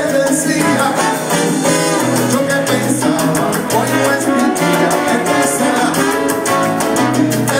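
Salsa band playing live with a steady beat, recorded from the audience of a large hall.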